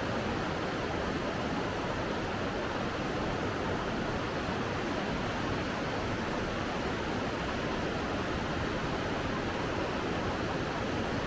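Steady, even rush of flowing water, with no pauses or changes.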